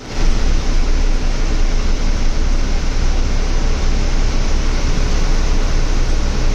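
Heavy monsoon rain pouring down steadily: a dense, even hiss with a deep low rumble beneath it.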